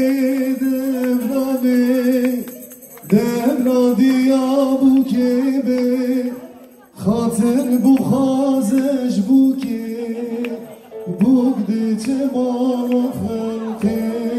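A male singer performs a slow song in long, held phrases of three to four seconds each, with short breaks between them.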